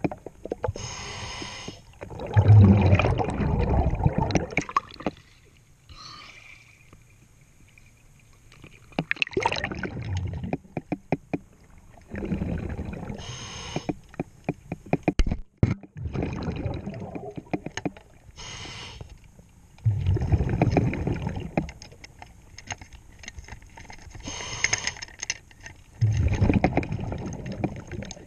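Scuba diver breathing through a regulator underwater: a short hiss on each inhale and a long bubbling rush on each exhale, repeating every few seconds. A quick run of sharp clicks comes about halfway through.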